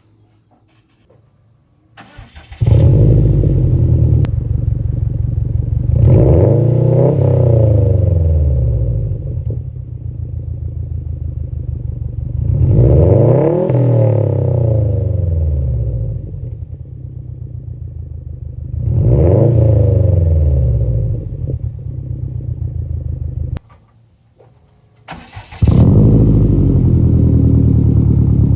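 2017 Subaru STI's turbocharged 2.5-litre flat-four, through a Nameless Performance straight-pipe track pipe exhaust, starts and idles, then is revved three times, each rev rising and falling back to idle. Near the end it cuts off abruptly, then starts and idles again.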